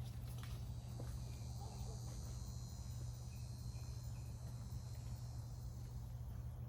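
Insects trilling steadily in a high, continuous chorus that fades out near the end, over a constant low hum.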